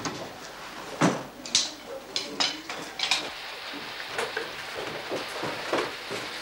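A handful of sharp clicks and knocks of a door being worked in the first few seconds. About three seconds in, a steady hiss of heavy rain begins, with soft, regular footsteps coming down a staircase.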